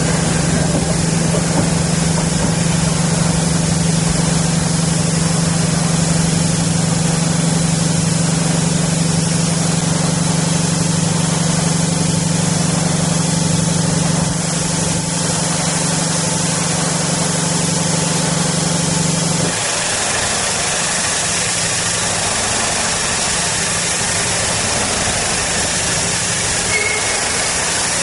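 Steam hissing from a Q6 0-8-0 steam locomotive as it draws away, over a steady low engine hum that cuts off suddenly about twenty seconds in.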